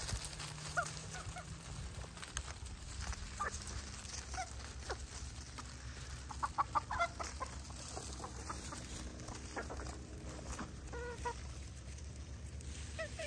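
Backyard chickens clucking: short scattered clucks, with a quick run of them about halfway through and another a couple of seconds before the end, over a steady low rumble.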